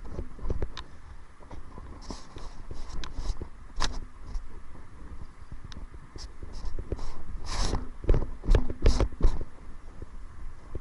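Kayak paddling: irregular paddle splashes and knocks of the paddle against the hull, over a low rumble of wind on the microphone. There is a cluster of louder splashes and knocks about three quarters of the way through.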